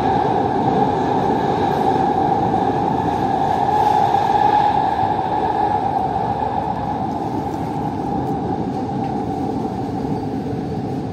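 Doha Metro train running, heard from inside the carriage: a steady rumble with a high whine over it. It grows a little quieter in the second half.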